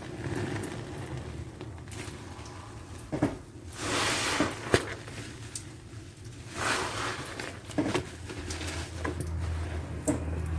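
A wet, soapy sponge being squeezed by hand, giving several squelching squeezes a second or two apart with a few short clicks between them.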